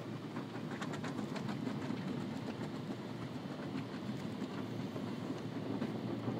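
An automatic car wash's spinning cloth brushes slapping and swishing against the car's side and windows, heard from inside the cabin over a steady rush of water and machinery. The slaps come thickest about a second in.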